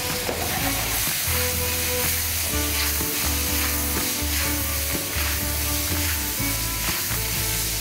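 Diced zucchini, yellow squash and freshly added tomatoes sizzling steadily in a hot stainless steel sauté pan over a gas flame. In the second half the pan is lifted and tossed, shaking the vegetables.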